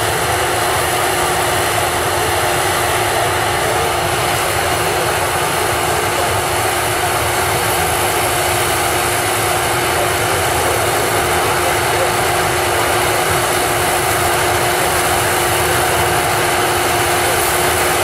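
Self-propelled corn harvester running steadily in the field, its engine and header machinery droning without a break as it takes in and chops cornstalks.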